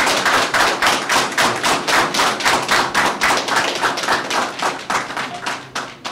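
Audience applauding, many hands clapping fast and unevenly; the clapping thins out and fades away near the end.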